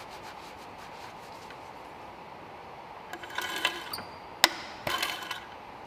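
Oil dipstick scraping as it slides through its guide tube about three seconds in, a sharp click as it seats, then a second scrape as it is pulled back out to read the oil level.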